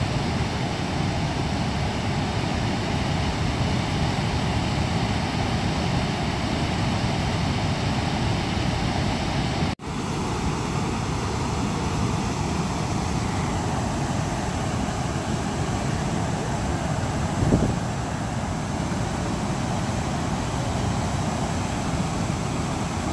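Steady rush of river water pouring over a dam spillway and churning in the tailwater below. The sound drops out for an instant a little before halfway, and a short louder sound stands out about three-quarters of the way through.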